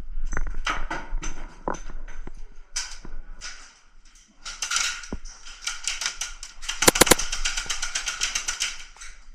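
Airsoft guns firing indoors: scattered single shots and clatter, then a rapid full-auto string of sharp cracks from about six and a half seconds in until near the end.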